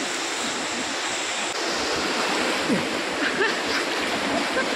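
Steady rushing of a fast-flowing river, slightly louder from about a second and a half in, with faint voices in the second half.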